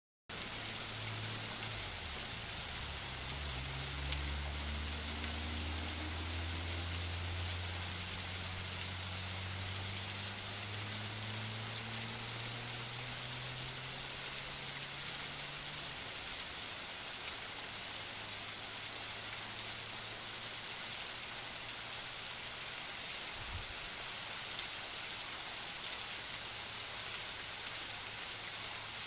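Steady rushing hiss of a waterfall. Under it, a low hum slowly rises in pitch through the first half and then settles into a steady drone, with one dull low knock about three quarters of the way through.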